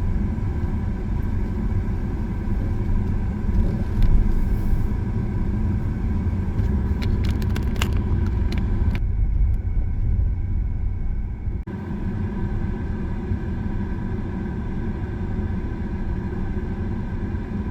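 Car driving on a road: steady low engine and road rumble, with a few light clicks.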